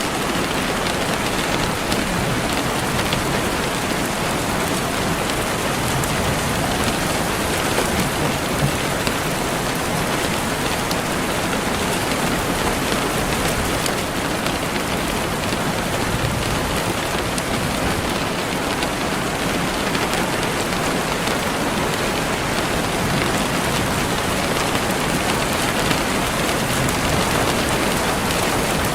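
Steady rain falling on a surface, a dense even patter of many small drops.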